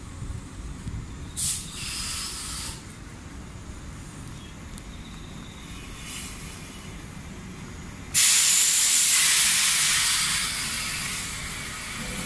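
Compressed air venting from a standing electric commuter train. A short hiss comes about a second and a half in, then a sudden loud hiss about eight seconds in that lasts several seconds and slowly dies away.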